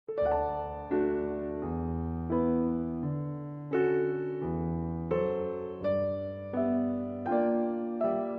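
Background piano music: a slow sequence of struck notes and chords, roughly one or two a second.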